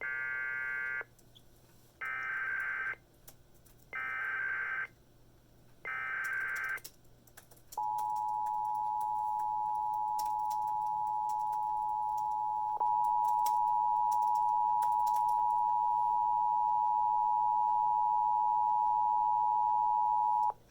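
Emergency Alert System data header: four short bursts of buzzing digital data tones, about two seconds apart. Then comes the EAS two-tone attention signal, a steady dual tone that runs about 13 seconds, steps louder with a click partway through, and cuts off sharply.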